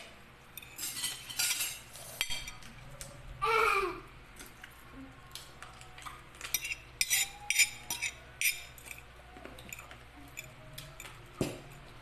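Spoons and forks clinking against plates as children eat, a string of sharp clinks that comes thickest in the second half. A short high-pitched voice sounds once about three and a half seconds in.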